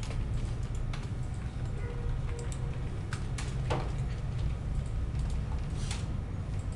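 A handful of separate computer keyboard clicks, a second or more apart, over a steady low hum.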